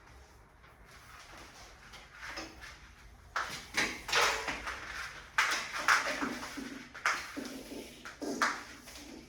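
A series of sudden knocks and clatters with rustling between them, starting about three seconds in: hand-handling of the pressure washer's hose and quick-connect fittings.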